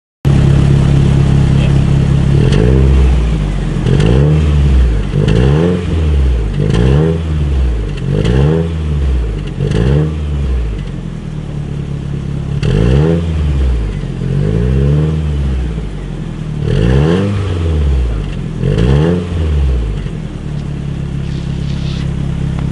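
Toyota Celica All-Trac's turbocharged 3S-GTE four-cylinder idling, then revved about ten times in quick blips, one every second and a half or so, with a short pause in the middle, before settling back to idle near the end. It is heard from behind, at the exhaust.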